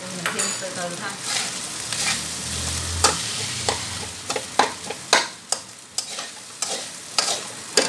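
Fried rice sizzling in a metal wok while a metal spatula stirs and turns it. From about three seconds in, the spatula strikes and scrapes the wok in sharp clanks, about two a second.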